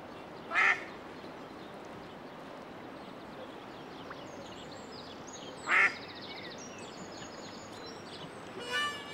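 A duck quacking twice, two short loud calls about five seconds apart, over a steady low hiss.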